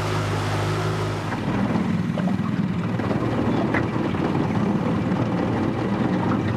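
Outboard motor running steadily, driving a small aluminium boat along at speed. About a second and a half in, its even drone gives way to a rougher, less steady one.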